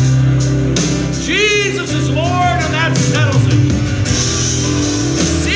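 Worship music: a voice singing with gliding, drawn-out phrases over sustained instrumental backing with a steady bass.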